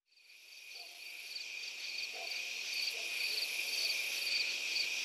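Crickets chirping, fading in from silence: a steady high trill with regular chirps about two to three times a second.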